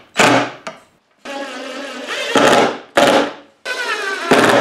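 Cordless impact driver driving screws through a steel lazy Susan bearing into plywood: each run starts as a motor whine and turns into rapid hammering as the screw seats. This happens in several short runs with brief pauses between them.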